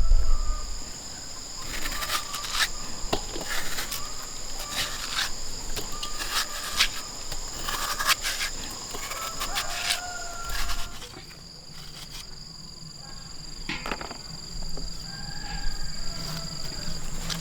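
Steady high-pitched insect drone, with scattered sharp knocks and clatter of handling over it and a few faint short calls from birds or fowl.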